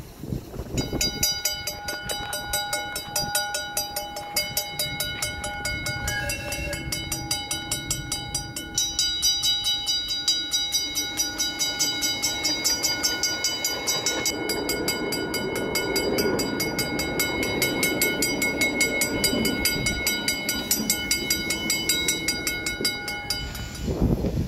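A rail vehicle running, with several steady high tones held throughout and a fast, even ticking; the sound stops shortly before the end.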